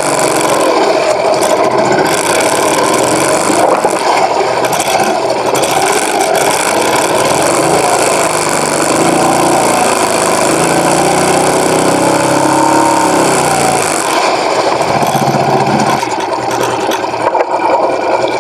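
Small outboard motor running as the boat moves. Its pitch wavers in the middle, and the sound eases off a little about fourteen seconds in.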